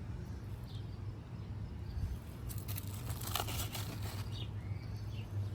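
Rustling and crackling among squash plants, loudest about two and a half to three and a half seconds in, over a low steady hum, with a few faint short bird chirps.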